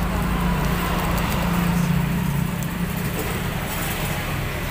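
A motor vehicle's engine running close by: a steady low hum that grows a little louder about two seconds in, then eases off.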